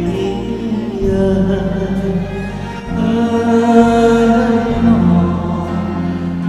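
Two men singing a duet into handheld microphones, with held, sustained notes over live band accompaniment.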